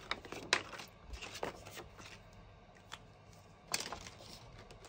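Cardstock being handled on a cutting mat: soft paper rustles and sliding with a few small clicks and taps, a sharper click about half a second in and a louder rustle near the end.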